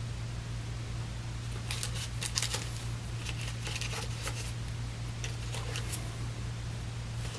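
Small plastic tools and packaging of a phone repair kit being handled, giving scattered light clicks and rustles from about two to six seconds in, over a steady low hum.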